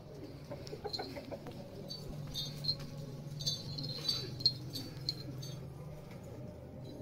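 Birds chirping in short, high notes, scattered and bunched most thickly through the middle, over a low steady hum.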